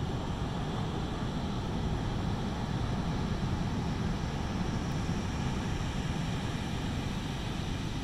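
Pacific Ocean surf breaking on a sandy beach: a steady rush and low rumble of waves, with no single crash standing out.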